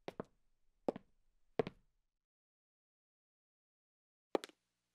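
Footsteps of a person walking across a room at a steady pace, each step a quick double knock. Three steps, then about two seconds of dead silence, then another step near the end.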